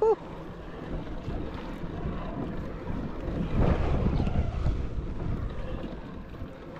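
Wind buffeting the microphone, with sea water washing around a kayak; a steady noisy rumble that swells slightly in the middle.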